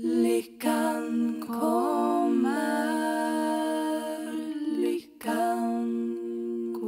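Women's voices singing a cappella: a wordless, sustained chord in close harmony, with two short breaks for breath, about half a second in and about five seconds in.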